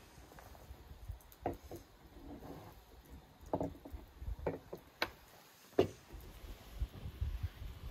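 Tulip tea glasses set down on glass saucers and cutlery knocking on plates: a string of sharp clinks and taps, the loudest about five and six seconds in, over a low rumble.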